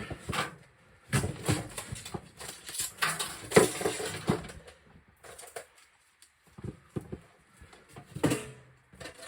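Thin sheet-metal wood-stove parts (stovepipe sections and damper) clanking and rattling as they are handled and fitted together, in irregular knocks with a short lull about six seconds in.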